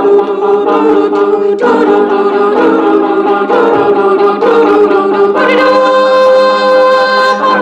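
Small group of voices singing in close harmony without clear words, moving from chord to chord about once a second, then holding one long chord near the end.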